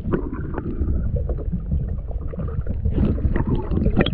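Muffled water sound picked up by a submerged camera: a steady low rumble of churning water with scattered knocks and gurgling bubbles, and a sharper knock just before the end.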